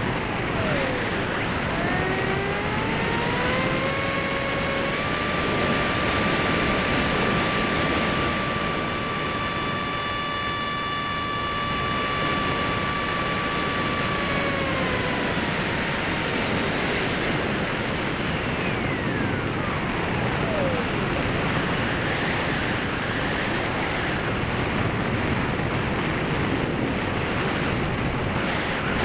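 Electric motor and propeller of a Skysurfer (Bixler) foam RC plane whining under throttle over a steady rush of wind. The pitch rises a couple of seconds in, holds steady, then falls away as the throttle is eased back, with another falling glide a few seconds later.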